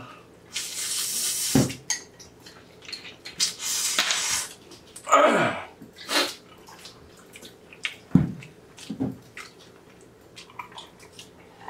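Close-miked eating sounds: spicy cold bibim-myeon noodles slurped in a few long noisy pulls, with wet chewing and mouth clicks between them.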